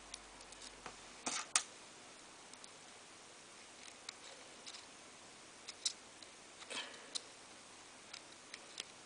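Faint, scattered small clicks and taps of an Allen key turning a tiny screw into a LunaTik watch case, with light handling of the case and strap. The loudest clicks come about a second and a half in, with a few more later.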